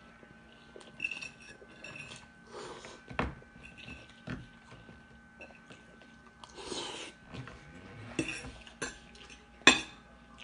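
Metal fork clinking and scraping against a plate while twirling spaghetti, with short stretches of mouth-eating noise in between. The sharpest clink comes near the end.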